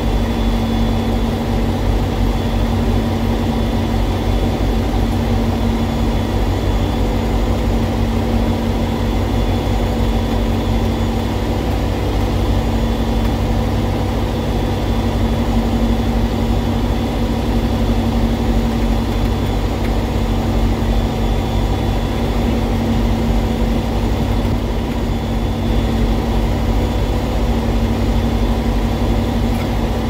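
A large engine idling steadily, an even, unchanging drone with a constant hum in it.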